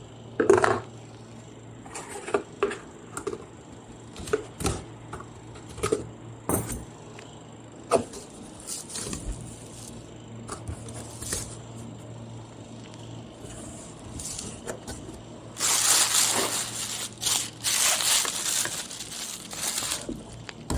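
A large cardboard parcel being opened by hand: scattered knocks and clicks of the box and its contents being handled, then, from about three quarters of the way in, a long stretch of tearing and crinkling packaging. A faint steady low hum runs underneath.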